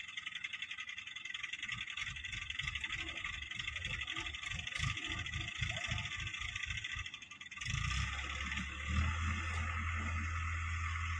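Diesel engine of a mobile crane running. It is uneven and pulsing at first, then about eight seconds in it rises into a loud, steady low drone as the crane lifts a cut eucalyptus log on its hook. A steady high buzz is heard throughout.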